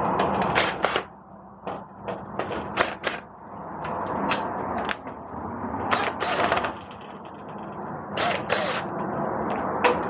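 A triple-lock security door lock being worked through its handle while it is tested after refitting, its bolts shooting in and out: a run of irregular clicks and clacks, with a longer rattle about six seconds in and a quick double click a couple of seconds later.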